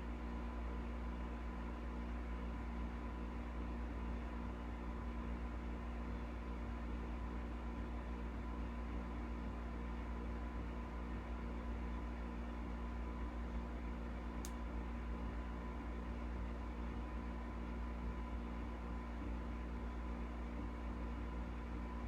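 Steady low electrical hum with hiss and a faint high tone, the background noise of the room and recording equipment, broken once by a brief click about two-thirds of the way through.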